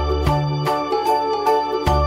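Background music: sustained chords over a bass line, with the notes changing every half second or so.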